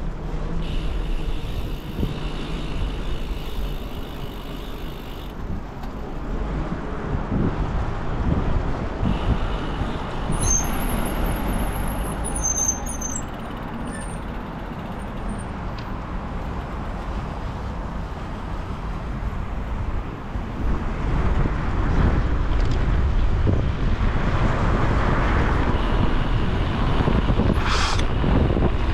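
Riding noise from a bicycle seen from its handlebars: a steady rumble of tyres on paving and wind on the microphone, mixed with passing road traffic. It grows louder about two-thirds of the way through.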